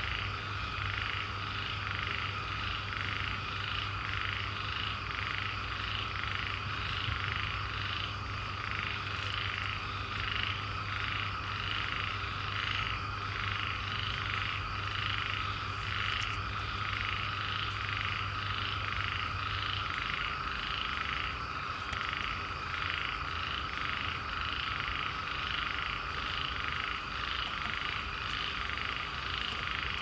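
Chorus of many swamp frogs calling together: rapidly repeated croaks layered over continuous calling, steady throughout.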